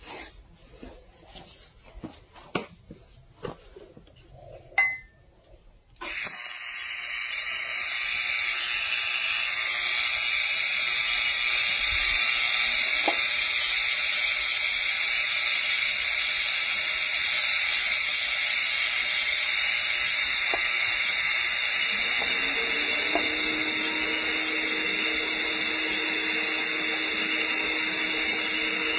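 A few scattered clicks and knocks, then about six seconds in a steady hiss starts abruptly and holds: an argon TIG welding arc burning while a capping pass is laid on a steel pipe joint.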